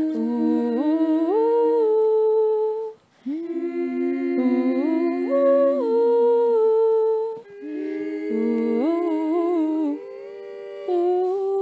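Layered voices humming a cappella in close harmony: held chords that step up and down in pitch, in phrases with brief breaks, ending on a long held chord.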